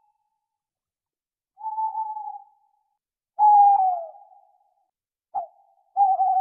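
Owl calling: three drawn-out, whistle-like hoots about a second long, each sliding slightly down in pitch, the middle one loudest, with a short clipped note just before the last.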